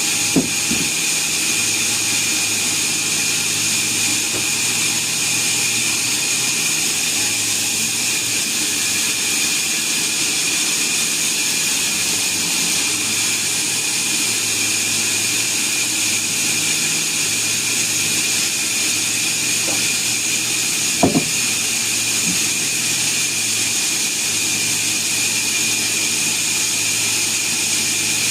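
Sawmill saw running steadily with a high whine, with a couple of short knocks, one just after the start and another about 21 seconds in.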